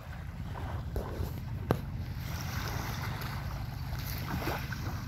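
Wind rumbling on the phone's microphone, with one sharp click a little under two seconds in.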